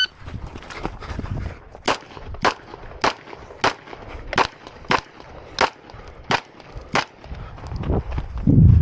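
Pistol fired in a steady string of sharp shots, roughly one every half to two-thirds of a second. A louder, low rush of noise comes near the end.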